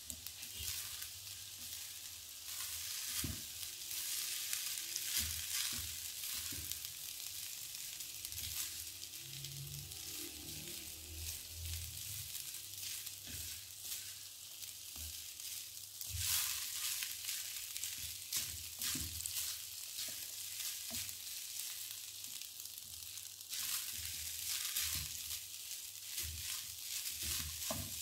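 Rice and vegetables sizzling in a hot non-stick wok on high flame, with a wooden spatula scraping and knocking against the pan as it stirs and tosses the rice. The sizzle swells louder about halfway through and again near the end.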